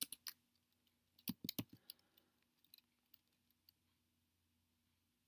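Computer keyboard keystrokes while typing code, in short bursts. A few keys are pressed at the start, then a quick run of about five about a second and a half in, then scattered lighter key clicks that stop after about four seconds.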